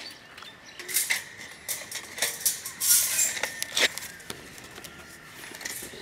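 Wire bird cage rattling and clicking as a sun conure is moved from a small cage into a larger one: a run of irregular clicks and scrapes, busiest in the first half.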